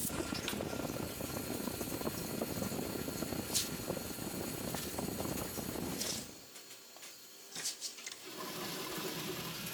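Factory machinery running with a steady noise. About six seconds in it drops away to a quieter level, a few sharp knocks follow, and then a steadier machine hum returns.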